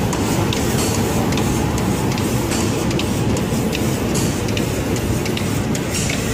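A cabinet door spray painting line running: a steady machine noise with sharp clicks two or three times a second and short hisses of air now and then.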